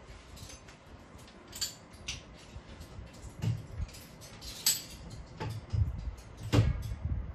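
Clicks, clinks and knocks of a steel monitor arm being handled and adjusted by hand, with a few heavier thumps, the loudest about six and a half seconds in.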